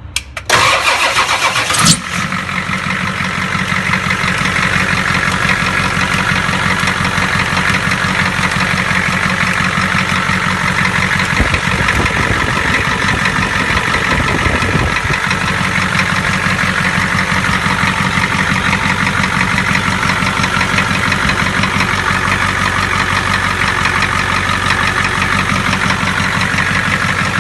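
7.3-litre V8 diesel engine cranking and catching about half a second in, then idling steadily with no injector tapping, its faulty fuel injector replaced.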